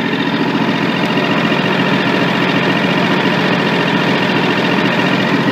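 Kawasaki small engine idling steadily.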